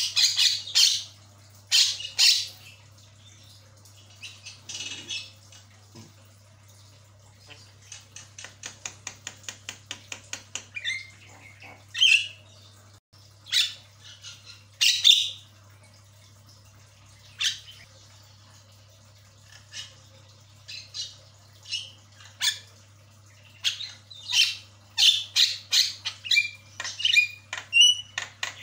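Javan myna (jalak kebo) calling in a varied string of harsh squawks and chatter. About eight seconds in comes a fast run of a dozen or so repeated notes, and near the end a few clear whistled notes.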